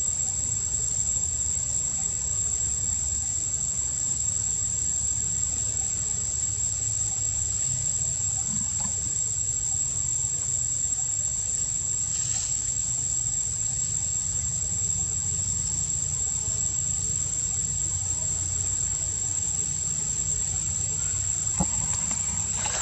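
A steady, unbroken high-pitched insect chorus over a low, steady rumble.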